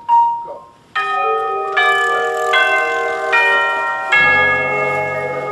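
A short high beep, then a drum corps brass horn line of trumpets and contrabass tubas playing a series of sustained chords, changing every second or so. Low bass notes join at about four seconds in as the line steps off.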